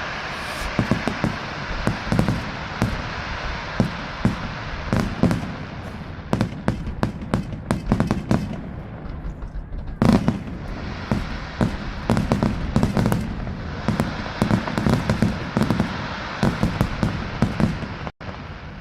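Fireworks display: a rapid, irregular barrage of bangs and crackling bursts over a continuous crackle, with one especially loud bang about halfway through. The sound cuts out briefly near the end.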